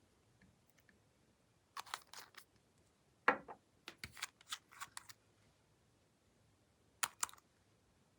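Glossy slime being worked by hand, giving groups of short sticky clicks and pops separated by quiet gaps, the loudest about three seconds in.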